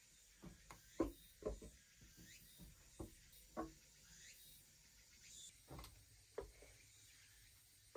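Soft, irregular knocks and taps, about ten over several seconds, the loudest about a second in, like small objects being handled and set down.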